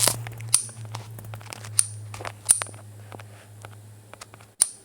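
A handful of sharp clicks and knocks, a few with a brief high ring, over a steady low hum that cuts out near the end.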